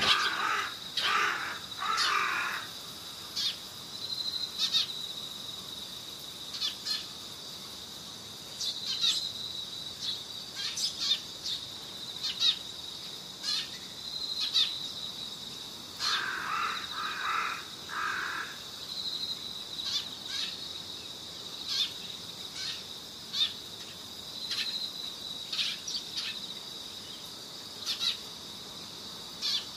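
Short high bird chirps every second or two over a steady high insect trill, with two longer bouts of busier chirping, one right at the start and one about sixteen seconds in.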